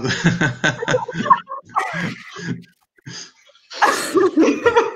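Women laughing over a video call in short, broken bursts with gasps between them, with a louder burst near the end.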